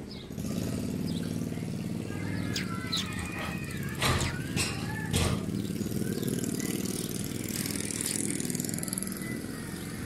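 An engine running steadily, with two sharp knocks about four and five seconds in.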